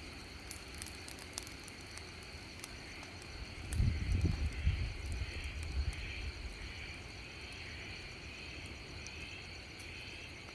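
Wood fire crackling in a fireplace, with scattered sharp pops in the first few seconds over a steady hiss. A low rumble swells about four seconds in and fades over the next two seconds.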